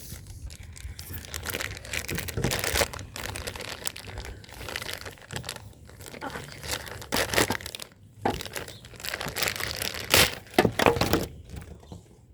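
Packaging being handled and unwrapped: irregular crinkling and rustling with short sharp crackles.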